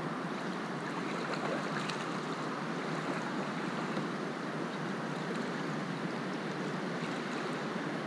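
Steady rush of fast river water around a moving canoe, with a few faint splashes.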